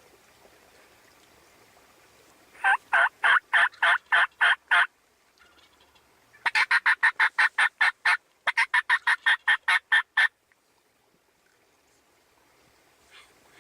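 Turkey yelping: a run of about seven loud yelps, a pause, then two quicker runs of about eight yelps each.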